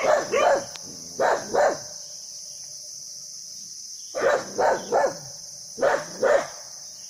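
A dog barking in short bursts of two or three barks, with pauses of a second or more between bursts, over a steady high-pitched drone.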